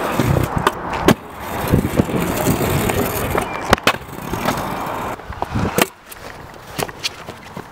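Freestyle kick scooter's wheels rolling and rattling over paving stones, with several sharp clacks of the scooter hitting the ground. The rolling turns quieter and smoother about six seconds in.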